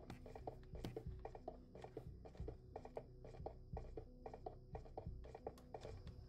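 Computer keyboard keys clacking in quick, irregular strokes, several a second, as a gamer plays, with faint music underneath.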